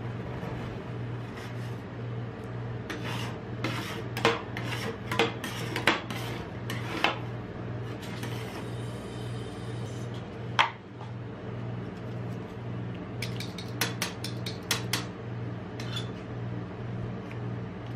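Metal spatulas scraping and clinking on the frozen steel plate of a rolled ice cream pan, in two clusters of quick sharp scrapes with a single one in between, over a steady low hum.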